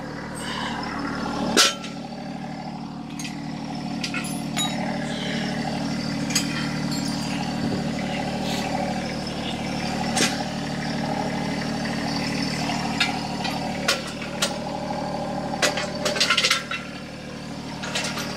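A compact tractor's diesel engine idling steadily, with a few sharp metal clanks from a steel jack stand being handled and set down. The loudest clank comes about one and a half seconds in, and a quick cluster of them falls near the end.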